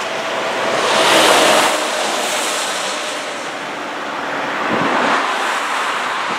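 Two vehicles passing by on the road, with a rushing of tyres and air. The louder one goes past about a second in and the second around five seconds in.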